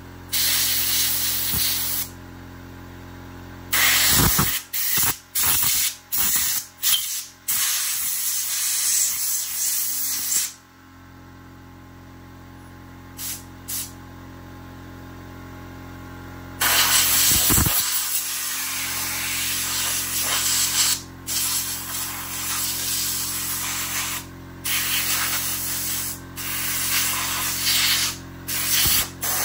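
Compressed-air blow gun hissing in loud blasts as dirt is blown off a chainsaw: a run of short quick bursts, a pause of several seconds in the middle, then long blasts with brief breaks. A steady low hum runs underneath.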